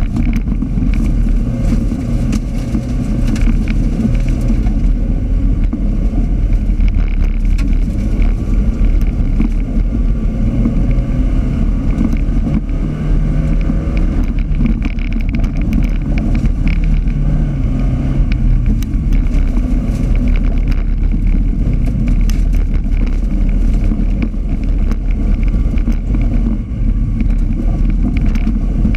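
Autocross race car engine running hard at racing pace on a dirt track, heard on board as a loud, dense drone that rises and falls with the throttle, with frequent short sharp clicks over it.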